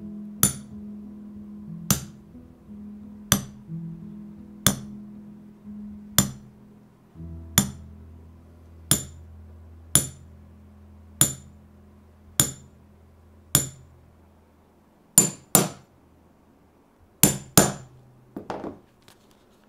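Shoemaker's hammer striking at an even pace, about one sharp blow every second and a quarter, with two quick double blows near the end.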